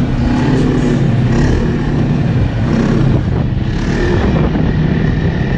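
Snowmobile engine running at a steady speed while riding, its pitch holding nearly level with small rises and falls.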